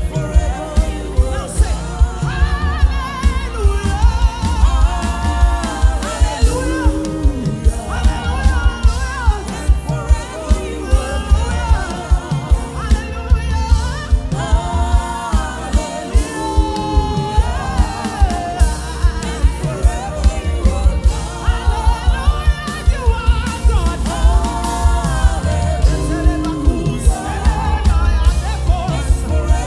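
Live gospel praise music: voices singing over a band with a heavy bass and a steady, driving beat.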